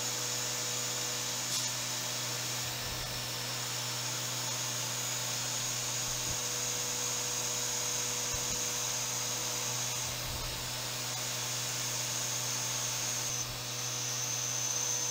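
Haas CNC mill spindle running a small end mill that is roughing hardened knife-blade steel, a steady high whine over a steady hum. The whine steps slightly lower about ten seconds in and again near the end.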